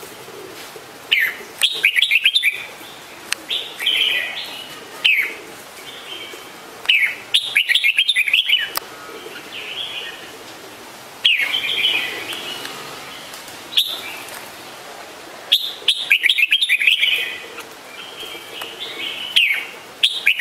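Red-whiskered bulbuls calling: short chirping calls every second or two, broken by several bursts of rapid chattering notes.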